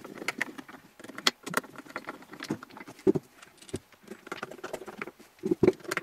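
Bosch Motronic ECU's metal housing and case being handled and closed up: irregular clicks, taps and light rattles of metal parts, with a couple of louder knocks near the end.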